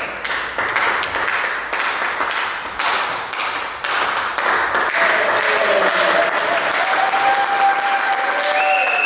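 Audience applauding, a steady patter of many hand claps.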